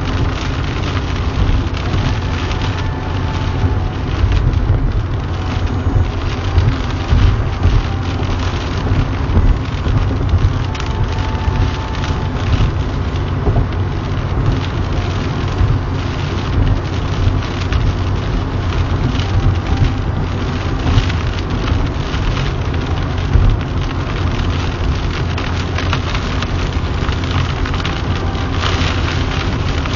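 Heavy rain pelting a car's roof and windshield, heard from inside the moving car, with a constant crackle of drops over a low steady rumble of road and engine noise.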